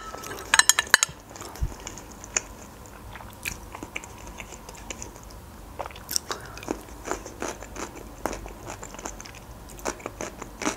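Close-up eating sounds: chewing with wet, crisp crunches in short irregular clicks, including bites into a slice of home-canned pickled cucumber about six seconds in. A brief cluster of sharper clicks comes just after the start.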